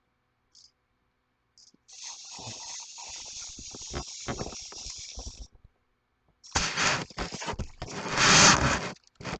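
Small wind-up toy's clockwork: a buzzing whir with many clicks for about three and a half seconds. After a short pause comes a louder stretch of scraping and rattling.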